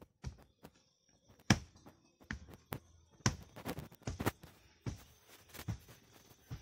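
Repeated dull thuds, about a dozen at an irregular pace: a bamboo-handled hand rammer (dhurmus) pounding soil to tamp it down in a trench.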